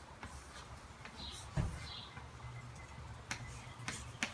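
Chalk writing letters on a chalkboard: faint scratchy strokes with a few sharp taps and one duller knock about a second and a half in.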